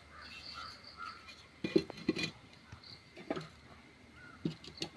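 Knocks and clatter of a clay cooking pot being set on the stove, loudest about two seconds in, with a couple of lighter knocks later. Crows caw faintly in the background.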